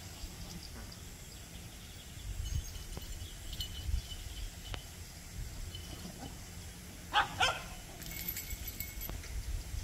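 Dogs at rough play, with one dog giving two short barks in quick succession about seven seconds in.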